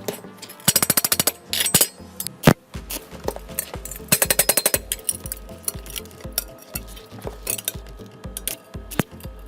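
Background music with a steady beat, over two bursts of rapid mechanical clatter, about a second and four seconds in, and several single sharp knocks, typical of power-tool and hand-tool work on metal.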